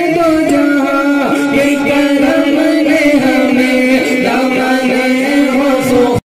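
A man singing a naat, a devotional song in praise of the Prophet Muhammad, in long held, wavering notes. The sound cuts out for a split second near the end.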